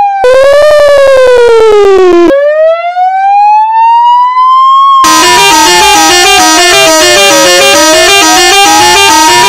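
Electronic police siren from a siren simulator app. A short buzzy, pulsing tone rises and falls and cuts off abruptly. A clean wail then climbs in pitch, and from about five seconds in it sweeps slowly down and back up over a fast repeating pattern.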